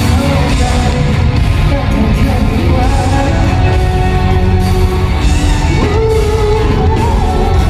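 Live rock band music playing loudly.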